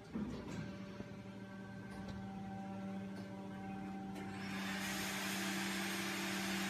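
Plastic injection moulding machine running with a steady hum, with a few light clicks in the first second and a hiss joining about four seconds in.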